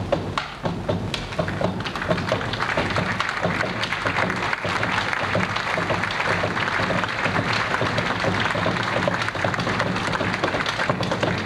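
Bombo legüero drums beaten with sticks in a fast, driving rhythm, with audience applause swelling in about two seconds in and carrying on under the drumming.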